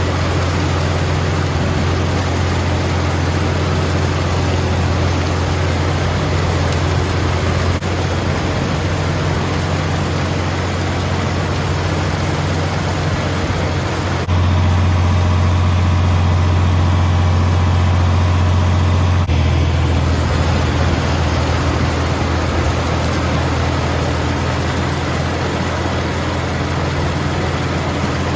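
Vintage John Deere tractor engine running steadily under load while pulling and driving a two-row corn picker, with the picker's machinery adding a rushing clatter. The engine note shifts abruptly several times.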